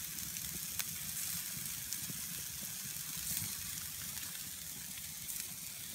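Beef burgers sizzling on a wire mesh grill over a wood campfire: a steady hiss with a few faint pops from the fire, over a low rumble.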